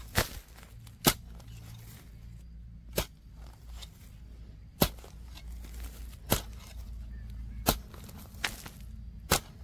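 Repeated sharp, dry strikes of a hand tool, seven in all, spaced roughly one to two seconds apart.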